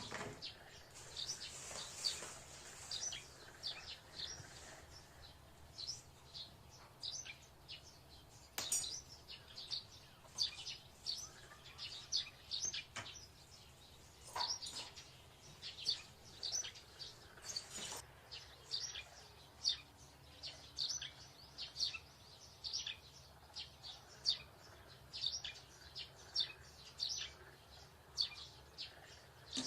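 A small bird chirping over and over: short, high chirps, several a second, with a few sharp clicks in between.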